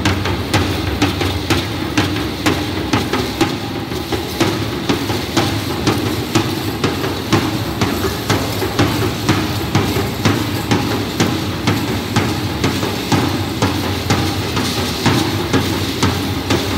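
Matachines dance drum beaten with a stick in a steady, even beat that goes on without a break.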